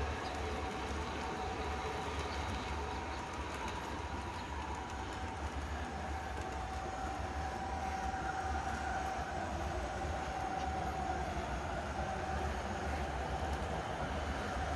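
Battery-powered model diesel locomotives running a double-stack freight train on a garden railroad. The sound is a steady running hum of the locomotives and their rolling stock on the track, with a steady mid-pitched tone and a low rumble underneath.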